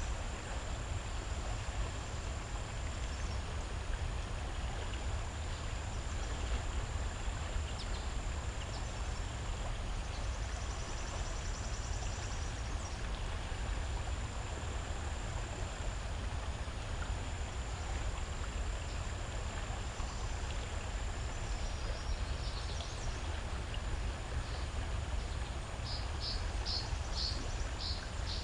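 Shallow stream ambience: a steady low rumble and hiss of running water. A high insect trill starts and stops every few seconds, and near the end a quick run of short high chirps comes in.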